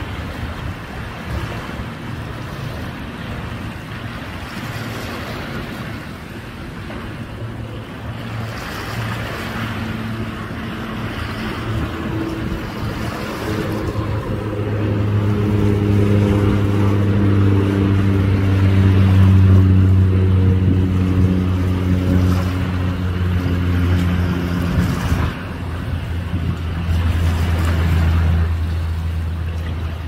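A boat engine's low hum passing offshore, growing louder through the middle and fading near the end, over a steady rush of wind and small waves on the shore.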